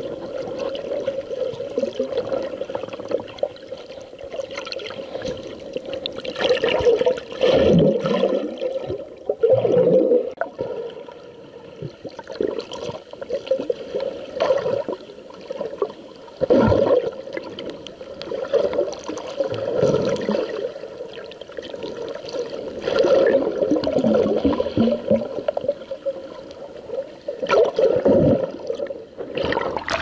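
Muffled water sloshing and gurgling picked up by a camera held underwater in shallow sea, over a steady hum, with surges every few seconds.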